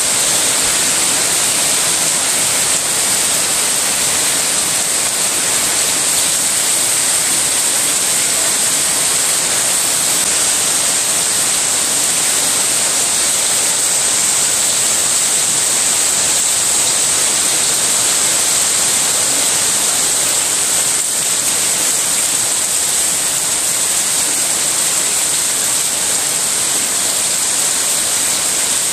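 Heavy rain pouring steadily onto wet floor tiles and into standing puddles, an even, loud hiss.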